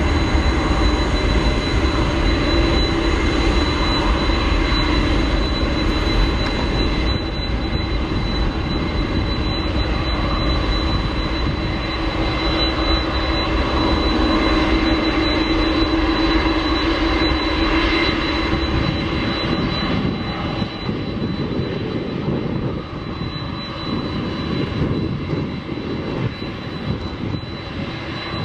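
Boeing 747-400's four jet engines running at low taxi power as the jumbo taxis toward the microphone: a steady low rumble with a thin, high, steady whine on top, easing off slightly in the last third.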